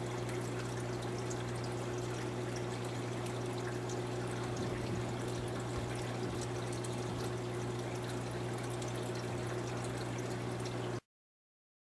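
A steady hum with an even hiss, like running or trickling water, that cuts off suddenly near the end into complete silence.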